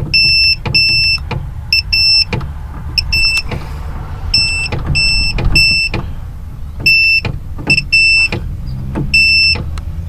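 A digital multimeter's continuity buzzer beeps in about ten short, uneven bursts as the brake light switch closes and opens with the brake pedal. There is a low rumble underneath.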